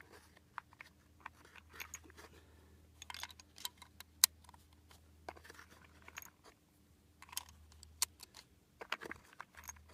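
Scattered small clicks and light rattles of handling: cartridges clinking in a plastic ammo box, then clicks from the US Optics ST-10 riflescope's turret being dialed, with one sharp click about four seconds in.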